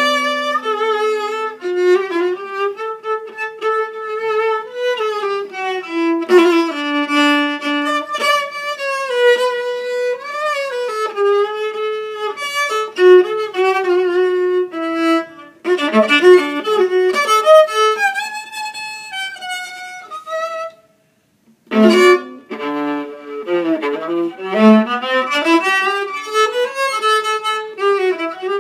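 Solo violin bowed in a slow melody of held notes, sliding in pitch between some of them. The playing stops for about a second around 21 seconds in, then resumes.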